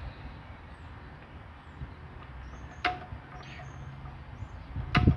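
Sharp metal clicks, two about two seconds apart, over a low steady rumble, as the stationary engine is handled; small birds chirp faintly, and louder knocking starts near the end.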